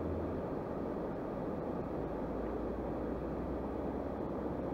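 Steady rush of river water pouring through concrete culvert pipes and over rocks.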